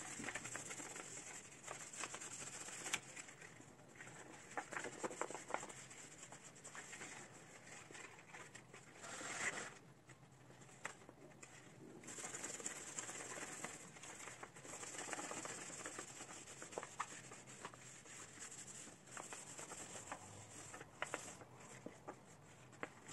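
Faint scratching, rustling and pattering of hands working over a freshly repotted aspidistra, its soil and broad leaves rustling, with many small scratchy clicks.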